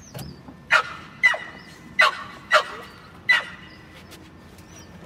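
A dog barking five times in short, high yaps, each dropping in pitch, spaced about half a second to a second apart.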